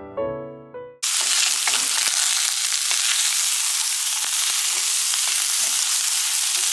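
Music ends about a second in, cut off by a steady sizzle of cauliflower, zucchini and yellow squash frying in a hot pan, with light scrapes of a wooden spatula stirring them.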